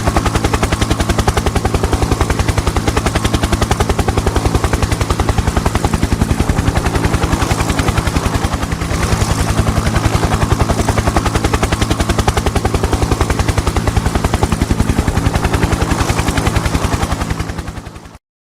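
Helicopter rotor blades chopping in a fast, even rhythm over a steady engine hum, fading away near the end.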